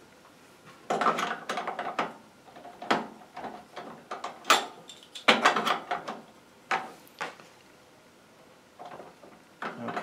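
Irregular knocks, scrapes and rattles of a power cord's connector being pushed and worked into the socket at the back of an antique electric heater, a tight fit. Most of the clatter falls in the first seven seconds.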